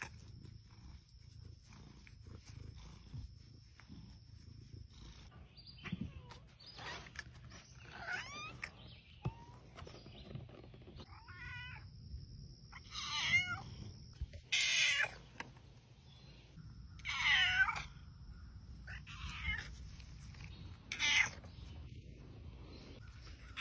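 Black-and-white domestic cat meowing again and again, about eight drawn-out, wavering calls spaced a second or two apart, starting about six seconds in.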